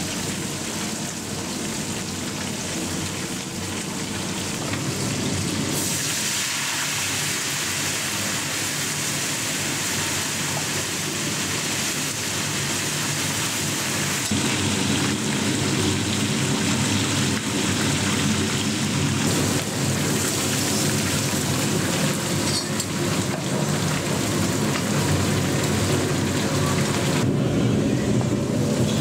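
Fish frying in hot oil in a kazan: a steady sizzle and crackle of oil, changing abruptly in texture a couple of times.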